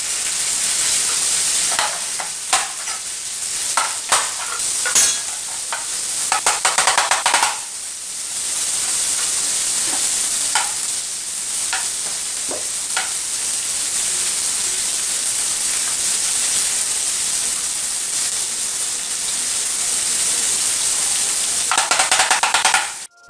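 Steady sizzle of food frying in a pan on a gas stove, with scattered knife knocks and cuts on a plastic cutting board as green plantains are peeled and sliced, a quick run of them around seven seconds in.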